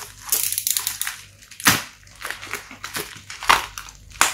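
Plastic packaging crinkling and crackling as hands squeeze and handle it, in a string of irregular crackles with a few sharper, louder ones.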